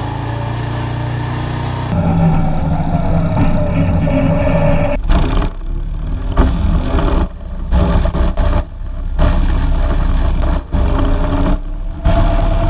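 ATV engine running while it tows a small trailer. About two seconds in it becomes louder and closer, heard from down by the rear hitch, with the engine pitch falling and rising and the sound breaking off briefly several times.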